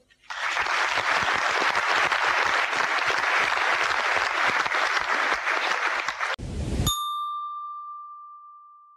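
Audience applauding, a dense steady clapping that cuts off about six and a half seconds in with a brief low thud. A single bright ding follows and rings out, fading away.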